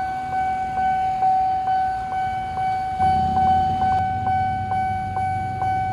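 Level-crossing warning alarm, an electronic crossing bell in the Japanese Nippon Signal style, sounding a steady ringing tone marked by regular strikes about two and a half times a second. A low rumble joins about halfway through.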